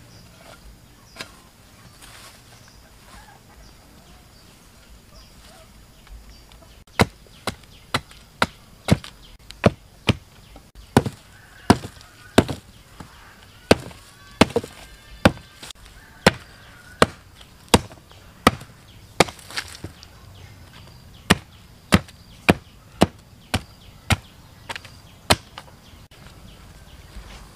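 Thin branches being chopped against a log with a blade: a regular run of sharp chops, about two a second, starting several seconds in.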